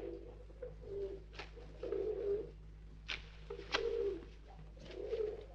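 Pigeons cooing, about five low calls of roughly half a second each, with a few sharp clicks between them.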